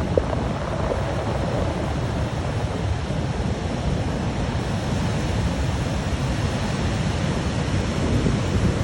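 Ocean surf breaking against rocks and draining back out, a continuous rushing with a heavy low rumble.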